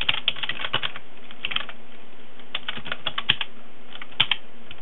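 Typing on a computer keyboard: short runs of keystrokes with pauses between them.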